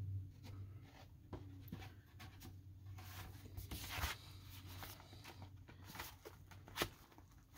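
Faint handling of a cardboard record jacket and paper inserts being turned over: light rustles and taps, with a short sliding swish about four seconds in and a sharp tick near the end.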